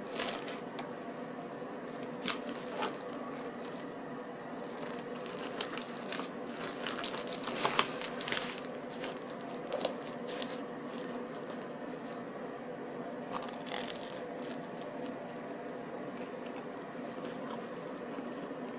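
Scattered small clicks, rustles and crunches from a toasted baguette sandwich being handled and bitten into, over a steady low hum.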